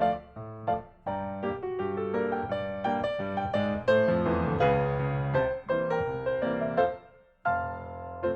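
Instrumental background music led by piano, playing a run of notes, with a brief break near the end before it picks up again.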